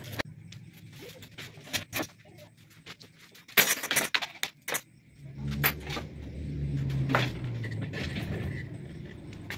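Clicking and rattling of small metal hardware and a plastic packet being handled, with a cluster of louder knocks a few seconds in; from about halfway a low rumble rises, swells and fades.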